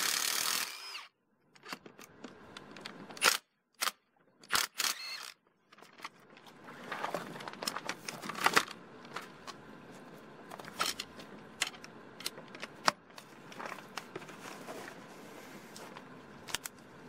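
Handling noise: scattered short clicks and knocks with light rustling, as the cordless impact wrench and the long auger bit are handled. No motor is running.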